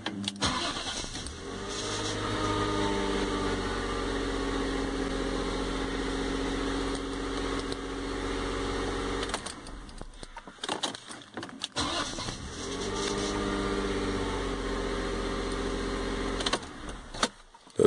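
BMW E39's engine started on the ignition key, catching within a second or so and idling steadily for about seven seconds before it is switched off. After a few clicks from the key it is started again, idles for a few seconds and is switched off. The starts show that the immobiliser accepts the key's transplanted transponder chip.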